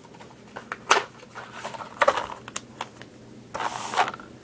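A box of pistol cartridges being handled: a handful of light clicks and rustles at irregular intervals, the sharpest about a second in and about two seconds in.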